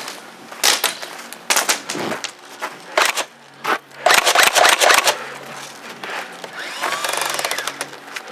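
Airsoft guns firing in short rattling bursts of rapid shots, with the longest and loudest burst lasting about a second in the middle.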